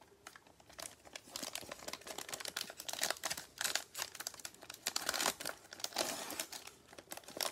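Clear plastic cello wrapper of a football trading card pack being torn open and crinkled by gloved hands: a dense, irregular crackling and tearing that starts a moment in.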